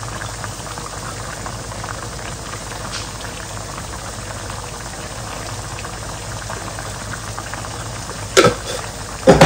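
Beef pieces simmering and bubbling steadily in their own juices in a pan on the stove. Near the end, two sharp knocks, like a utensil or jar striking a pot.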